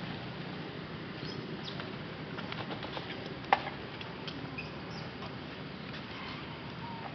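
Forest ambience: a steady low background with scattered faint chirps and ticks, and one sharp click about halfway through.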